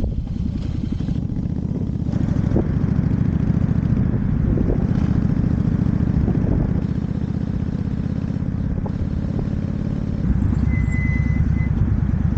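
Honda V-Twin Magna's V-twin engine running under way, a steady pulsing exhaust note that gets louder about two seconds in and again near the end as the throttle opens.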